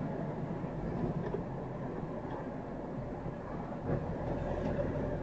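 Engine and road noise inside the cab of a large vehicle as it drives: a steady low drone with a faint engine hum.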